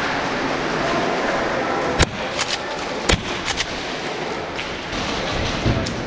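Airsoft gunfire: two sharp shots about a second apart, each followed by a few lighter clicks, with more faint cracks near the end, over the steady background noise of an indoor arena.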